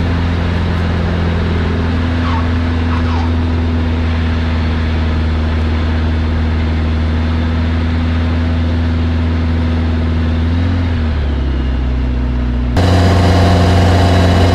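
Kitfox light aircraft's piston engine and propeller running steadily, a loud drone heard inside the open-strut cockpit during the landing rollout. About eleven seconds in the engine note dips and settles lower as power comes back, and near the end a louder, different engine hum cuts in.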